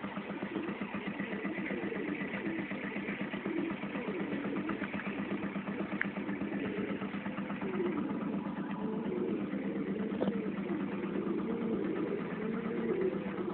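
A steady low mechanical hum like an idling engine, with domestic pigeons cooing over it again and again, more of them in the second half.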